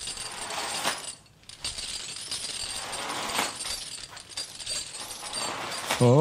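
Metal chains rattling and clinking as a ghost's-chains sound effect, with a few sharper clanks. Right at the end a loud low tone slides upward and holds.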